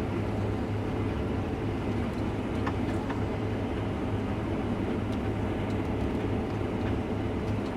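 Steady drone of a Case IH combine's engine and threshing machinery, heard from inside the cab while harvesting wheat.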